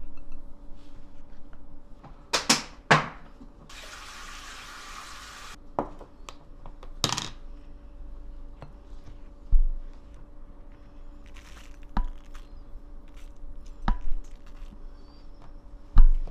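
Kitchen handling sounds: a spoon and dishes clicking and knocking a few times. There is a short hiss of noise about four seconds in, all over a steady faint hum.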